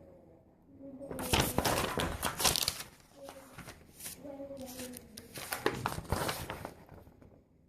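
Crinkling and rustling of Lego set packaging, in short bursts of rustling and tearing, as the box is opened and its contents handled. A faint murmured voice is heard in between.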